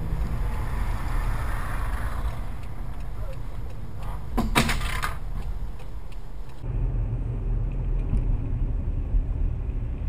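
Car road and engine noise heard from inside the cabin through a dashcam, with one brief loud burst of noise a little over four seconds in. After an abrupt change, a duller, heavier low rumble takes over from another dashcam recording.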